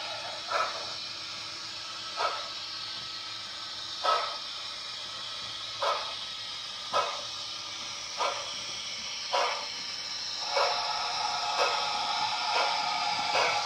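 Sound-fitted Bachmann D11 model steam locomotive's DCC decoder playing a Youchoos steam sound: slow exhaust chuffs over a steady steam hiss, the beats gaining pace from about one every two seconds to about one a second as the engine gets its train under way.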